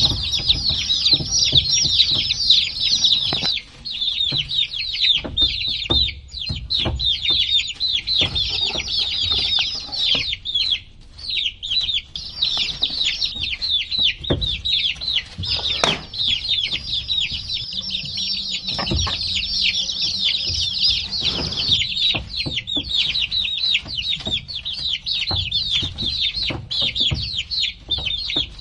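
A brood of baby chicks chirping continuously, many high, short, downward-falling peeps overlapping at once, with occasional soft thumps and knocks underneath.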